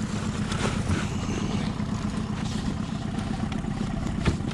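Boat's outboard motor running steadily at low speed, with a single sharp knock near the end.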